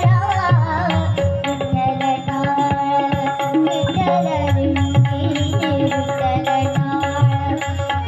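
Marathi Varkari devotional bhajan music: a hand drum and small cymbals keep a steady beat under a held drone and a wavering sung or played melody.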